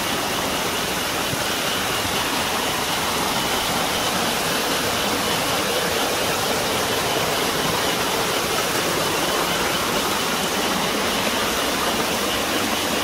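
Hot-spring water rushing steadily down over rocks.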